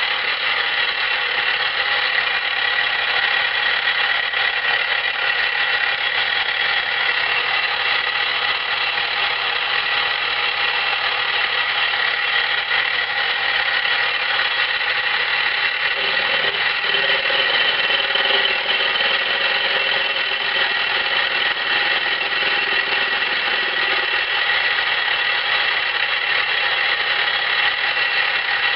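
Milling machine running with an end mill cutting a pocket into a replacement gib, a steady machining whine with a high squeal. A lower-pitched tone joins in a little past halfway and drops out about eight seconds later as the cut changes.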